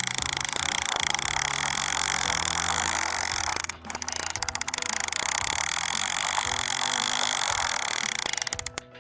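Battery-operated toy helicopter running: a loud, steady whirring buzz from its motor and gears, with a tinny electronic tune of changing notes playing over it. It breaks off briefly about four seconds in and cuts off suddenly just before the end.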